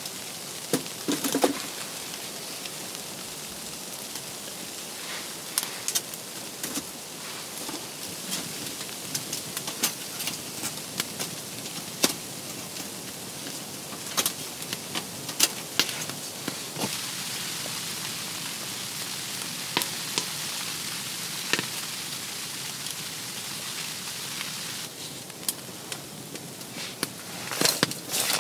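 Wood fire in a small tent stove crackling, with scattered sharp pops over a steady hiss, as sticks are worked into it. Wooden knocks about a second in and a cluster of handling knocks near the end.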